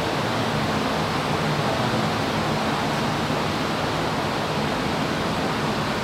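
Steady rushing of the many cooling fans on cryptocurrency mining rigs, with a low steady hum underneath.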